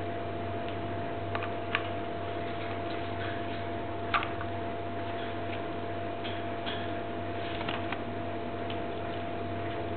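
Steady electrical hum with a few scattered, sharp light clicks and taps.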